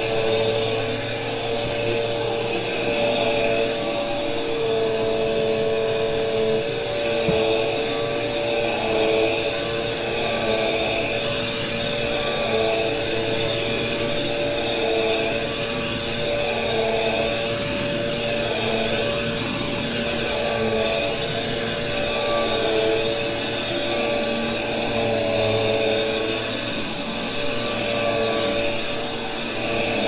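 Vacuum cleaner running steadily, a motor whine over a rushing hiss that swells and eases every few seconds.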